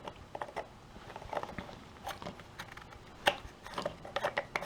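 Small clicks and knocks of a pipe fitting being handled and test-fitted onto a new sump pump, with one sharper knock a little past three seconds in.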